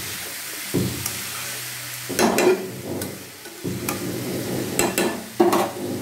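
A metal spatula stirs and scrapes rice around a metal kadhai, with a steady sizzle of frying underneath. Several scrapes and knocks of the spatula on the pan come a second or two apart. The rice is being dry-roasted in oil with spices before the water goes in.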